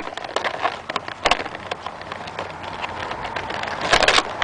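Plastic packaging crackling and clicking irregularly while an action figure is worked free of its zip ties and tray, with a louder cluster of clicks near the end.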